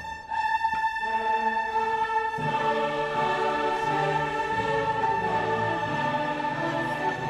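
Background classical music in an orchestral style, made of sustained held notes that shift every second or so.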